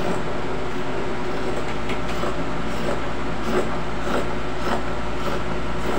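A steady mechanical hum, like a fan or machine running, with faint snips of scissors cutting cloth from about two seconds in, coming about every half second toward the end.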